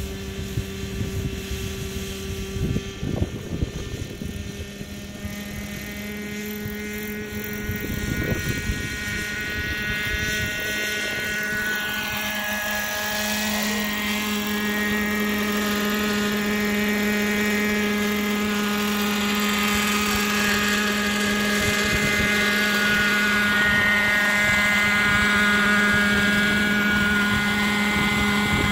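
Radio-controlled scale helicopter with an MD 500-style body, its rotors and drive giving a steady whine of several held pitches that grows louder as it flies in low and comes down close by.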